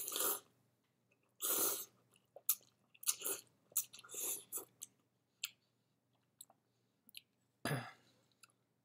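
Shin Ramen noodles slurped from a bowl in about five short noisy bursts, with chewing and small mouth clicks in between.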